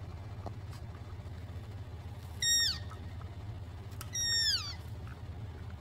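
Two high-pitched elk squeals about a second and a half apart, each held briefly and then sliding down in pitch.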